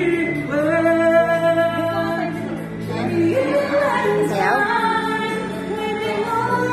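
A woman singing long held notes that slide between pitches, over backing music.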